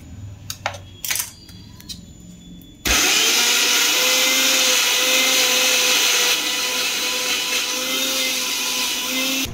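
Electric mixer grinder with a small steel chutney jar grinding onion, garlic, chilli and ginger into a coarse paste. First a few clicks and taps of the spoon and lid on the jar. About three seconds in, the motor switches on suddenly and runs loud and steady with a constant whine, cutting off at the end.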